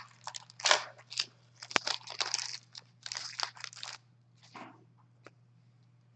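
Foil wrapper of an Upper Deck Series 1 hockey card pack being torn open and crinkled by hand, a quick string of short crinkling and tearing noises. About four seconds in it quiets to a few light rustles and clicks as the cards are handled.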